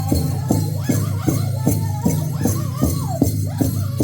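Powwow drum group singing a grand entry song: several men beating a big drum together in a steady, even beat of about two and a half strokes a second, under high, sliding, falling vocal phrases.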